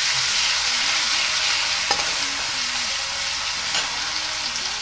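Garlic paste and cumin seeds sizzling in hot oil in a metal kadhai, stirred and scraped with a steel spoon. A steady frying hiss.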